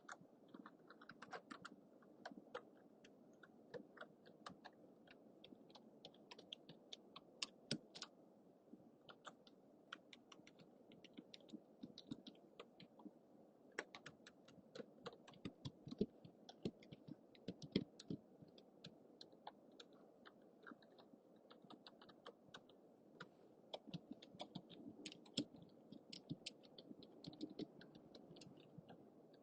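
Typing on a computer keyboard: an irregular, continuous patter of key clicks, several a second, over a faint steady hum from a low-budget microphone.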